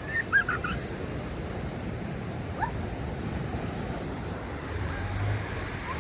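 Ocean surf washing steadily on a beach at night, with a few brief high-pitched vocal sounds near the start and again near the end.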